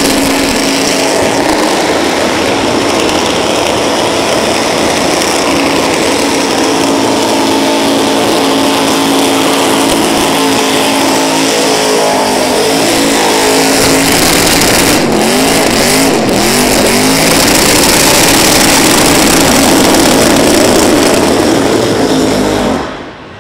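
Supercharged 360 cubic-inch V8 of an AP5 Valiant held at high revs in a burnout, rear tyres spinning on the pad. The revs hold steady, then rise and fall a few times, and the sound cuts off suddenly near the end.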